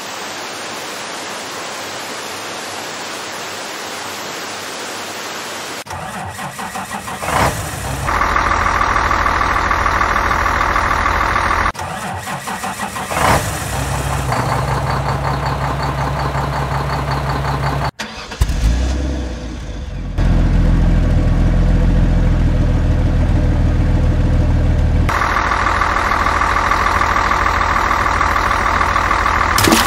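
Muddy water rushing steadily over a small weir, then from about six seconds in, truck engine sounds running and idling in several abruptly cut segments, with a few short louder bursts.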